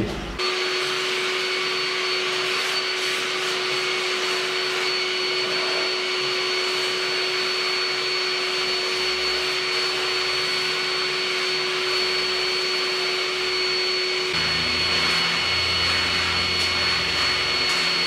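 Makita DVC260Z 18V+18V cordless backpack vacuum cleaner, with a brushless motor, starting up abruptly and then running steadily with a whine held at a fixed pitch. About three-quarters through, its pitch shifts slightly and a low rumble joins in.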